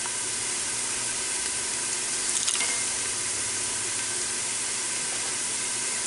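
Food sizzling steadily in hot oil in an Instant Pot on its sauté setting, with a few light clicks about two and a half seconds in.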